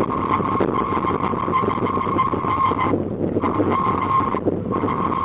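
Bicycle and pet trailer wheels rolling over a paved road: a steady rumble with a constant high-pitched whine on top, which breaks off twice briefly, a little after halfway and again near the end.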